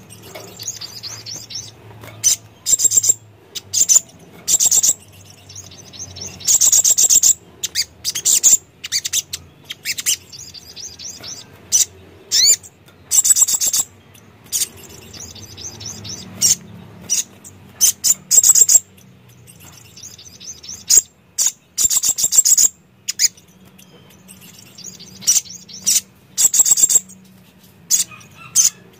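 Caged male sunbird singing: a string of short, high-pitched, twittering song phrases with quick trills, repeated every second or two with brief pauses between.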